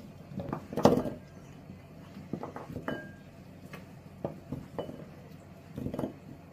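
Carrot slices being scooped off a wooden cutting board and dropped into a ceramic bowl: a series of light knocks and clinks, the loudest about a second in.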